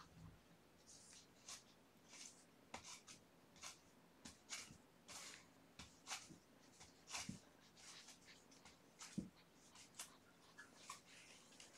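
Faint, irregular scratching and rustling as kittens play, claws raking a cardboard scratcher and carpet in short strokes, with a couple of soft thumps, the loudest about nine seconds in.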